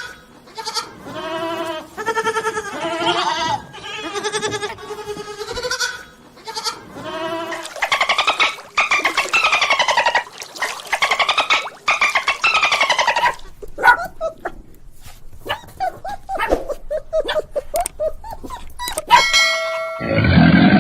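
Repeated bleating animal calls: short calls through the first few seconds, then longer quavering calls, followed by scattered clicks and brief calls. A deep, loud roar starts near the end.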